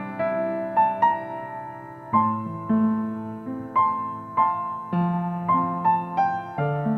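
Upright piano played solo in a slow, gentle piece: held chords under a melody, with a new note struck about every half second.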